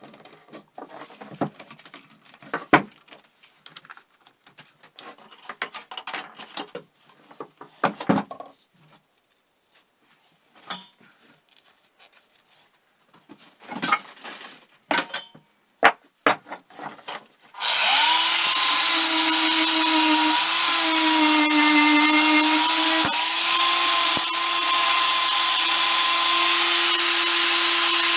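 Scattered clicks and knocks of metal parts being handled. About two-thirds of the way in, a power tool starts up and runs loudly and steadily, its pitch sagging briefly a few seconds later.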